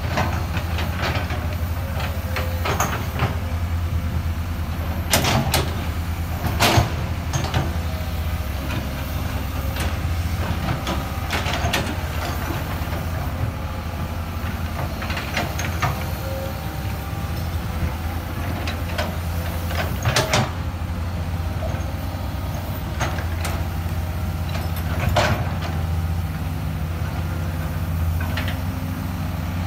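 Excavator's diesel engine running steadily, with sharp clanks and knocks now and then, the loudest a few seconds in and again around twenty seconds in.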